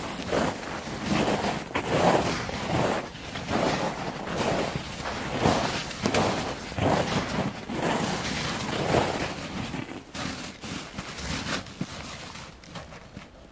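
Footsteps crunching through snow and brushing past branches at a walking pace, with wind on the microphone; the steps fade out near the end.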